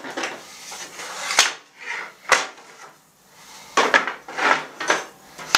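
Several sharp knocks and some clatter from timber and aluminium angle being handled and set into place on a table saw's metal top and fence channel.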